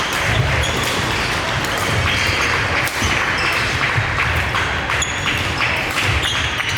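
Busy indoor sports hall during a racket-sport singles match: repeated sharp hits of a ball or shuttle and brief high shoe squeaks over a steady hall din.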